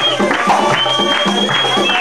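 Live Bandari wedding music: a hand drum and a tambourine beaten in a quick, even rhythm, with a high held melody line over a low drone.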